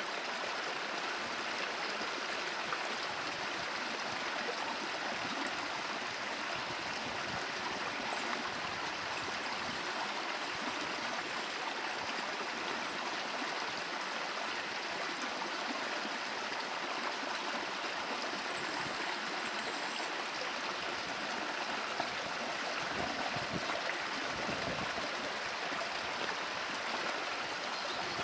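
Steady rush of running water, like a stream, unchanging throughout.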